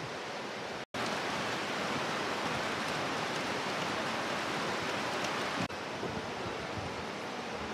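Steady rushing water, a constant even roar of flowing water with a brief break about a second in.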